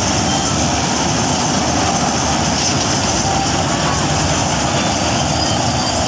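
Dasmesh 9100 combine harvester running while harvesting: its engine and cutting and threshing machinery make a loud, steady drone.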